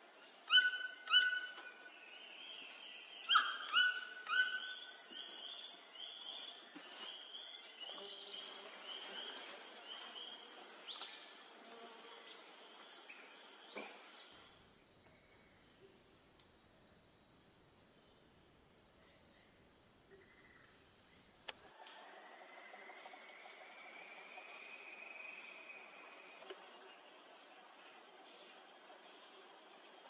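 Steady high-pitched drone of forest insects. In the first five seconds a bird gives five loud calls in two groups. The insect sound drops quieter about halfway through, then returns louder and pulsing near the end.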